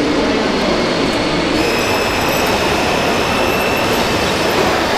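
Loud, steady din of a busy hall with radio-controlled model machines working. A thin high whine joins about a second and a half in.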